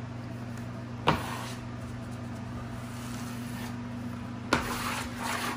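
A steady low mechanical hum, with a sharp tap about a second in and another about four and a half seconds in, followed by a brief stretch of rubbing near the end.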